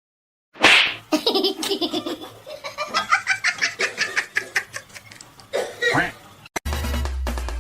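A person laughing hard in quick repeated bursts, starting with a loud outburst about half a second in and fading out about six seconds in. Music with a strong low beat starts near the end.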